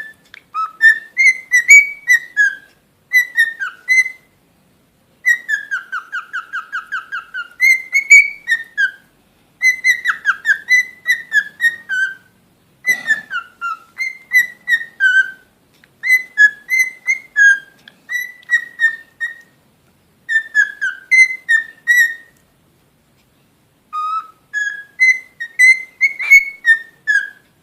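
Cockatiel whistling a tune in short phrases of clear, sliding notes, with pauses between phrases and a rapid trilled run about six seconds in.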